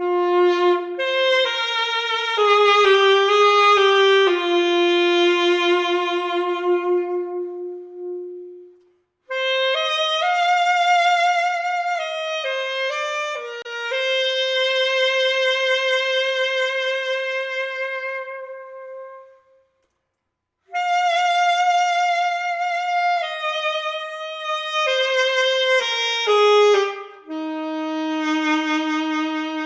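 Yamaha YAS-200AD alto saxophone played solo: a slow melody in three phrases, each ending on a long held note, with short pauses between them.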